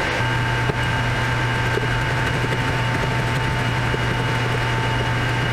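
Steady machine hum with a constant whine above it, like a motor or cooling fan running, and one light click about a second in.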